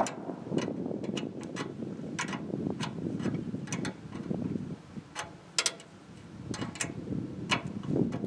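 Small metal parts on a sawmill head clicking and ticking as hands fit and turn them, in irregular sharp clicks about one or two a second.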